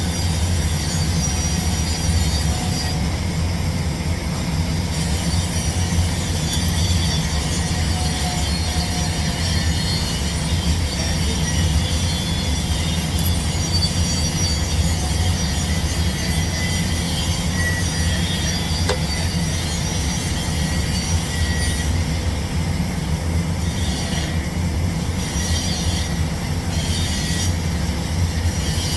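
Steady low mechanical rumble that runs on without a break or change.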